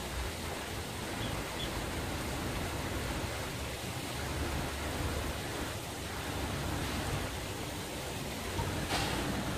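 Steady outdoor hiss with low rumble from wind on the microphone, and one short click about nine seconds in.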